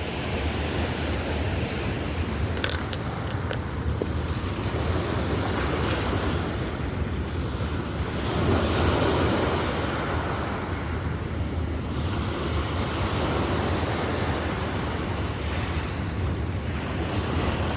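Steady rush of wind on the microphone over fast-flowing river water, swelling for a couple of seconds about halfway through, with a few faint clicks near the start.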